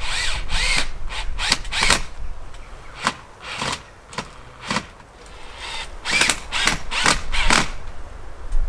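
Cordless drill-driver run in a series of short bursts, driving screws into the wooden trellis rail. Its whine climbs as the motor spins up in the first second.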